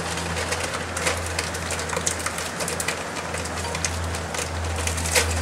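Frozen blueberries being poured from a plastic packet into a blender jug, a light scattered patter of small clicks with a sharper click near the end, over a steady low hum.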